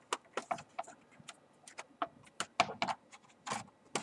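Irregular sharp plastic clicks and snaps as a plastic guitar pick is worked around the edge of a laptop's plastic top cover, popping its retaining tabs loose.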